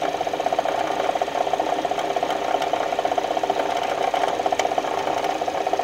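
Kia engine idling with a fast, even knocking rattle, which the mechanics trace to a worn bearing in the water pump.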